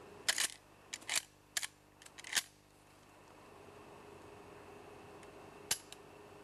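A gun's action being worked as it is unloaded: a quick series of sharp metallic clicks over the first two and a half seconds, then one more click near the end, over a faint steady hum.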